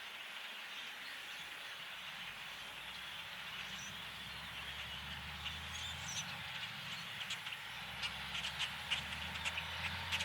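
Harvest machinery running in the distance, a low steady hum that swells over the second half, with scattered short bird chirps and clicks growing more frequent toward the end.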